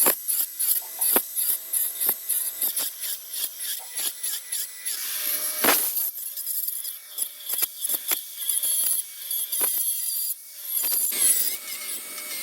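A tool working wood in quick, repeated strokes, about three or four a second at first, with one longer sweep near the middle and sparser strokes after it, as a curved decorative bead is cut.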